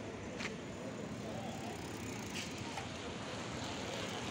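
Many bicycles rolling past on an asphalt road: a steady wash of tyre and street noise with a few short, high-pitched clicks about half a second in and again a little after two seconds.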